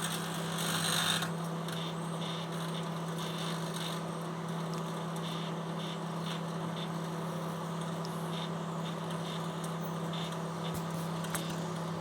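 Microwave oven running with a steady low hum, with scattered crackles from a smoke alarm overheating and burning inside it, and a brief louder hiss about a second in.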